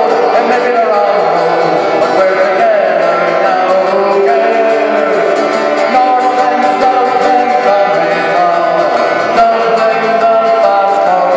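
A man singing into a microphone while strumming an acoustic guitar, the voice holding and gliding between long notes over a steady strummed accompaniment.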